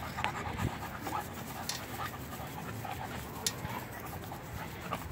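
A husky panting as it runs pulling a bicycle, tiring from the work, with a couple of sharp clicks.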